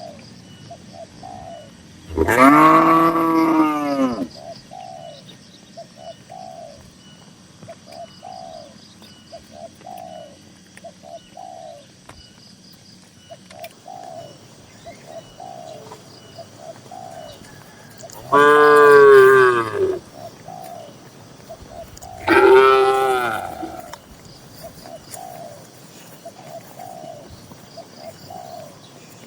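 Cows mooing three times in long, loud calls, one about two seconds in and two more close together past the middle. Between them a dove coos softly and repeatedly, about once a second.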